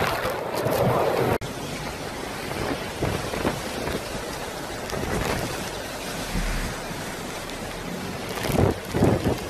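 Hurricane wind and driving rain, gusts buffeting the phone's microphone in a steady rushing roar. The sound breaks off abruptly about a second and a half in and resumes a little quieter, with stronger gusts near the end.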